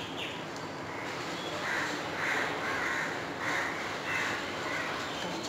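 A crow cawing: a run of about six harsh caws in quick succession, starting about a second and a half in.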